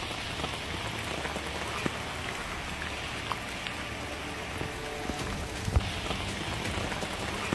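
Steady rushing of a flash-flooded creek pouring over and around a boulder, with a single thump about six seconds in.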